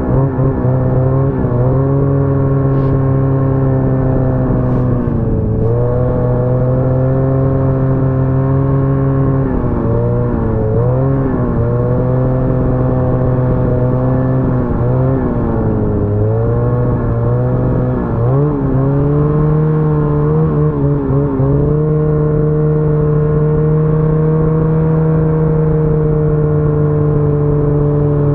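Ski-Doo snowmobile engine running steadily under throttle while riding, its pitch dipping briefly several times as the throttle is eased and reopened, then holding a slightly higher, even note in the second half.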